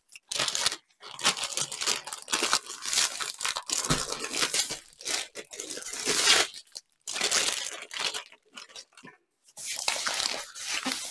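Rolled diamond painting canvas being handled and unrolled: its plastic cover film and paper backing crinkling and rustling in irregular bursts with short pauses.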